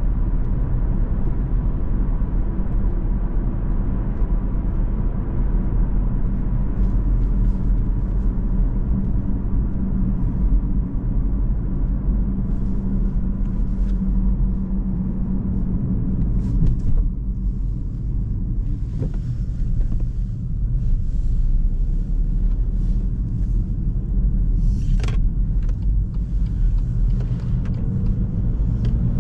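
In-cabin drive sound of a 2017 BMW 116d: its 1.5-litre three-cylinder turbodiesel and tyre and road noise as a steady low rumble, easing off briefly past the middle as the car slows off the motorway.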